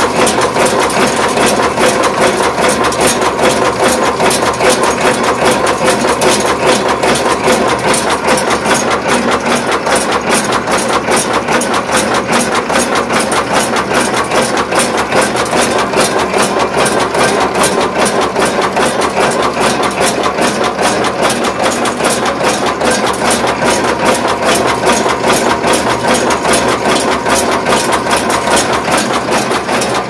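IPM 2000 closed-type steel buckle machine running steadily at production speed, its tooling forming steel strapping buckles. The sound is a rapid, even train of metallic clicks over a steady machine hum.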